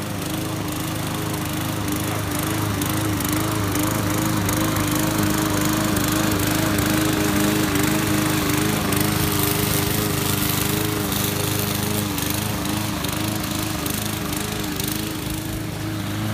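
Walk-behind gas-powered rotary push mower running steadily while cutting grass, a little louder in the middle as it passes close.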